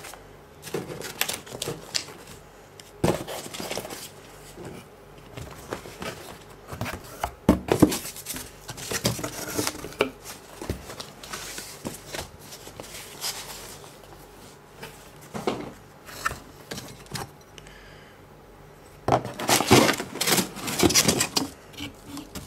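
Cardboard packaging being handled by hand: box flaps, a paper instruction leaflet and an inner box are shifted and lifted out. It comes as irregular rustles and knocks, with the busiest stretch near the end.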